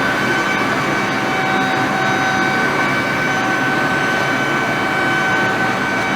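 Wood-Mizer SlabMizer slab flattening mill running: a steady, loud rushing noise with a constant high whine from its cutter-head motor.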